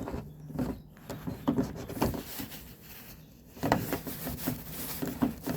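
Irregular clicks, knocks and rubbing of a car's exterior door handle and its plastic trim being worked loose by hand.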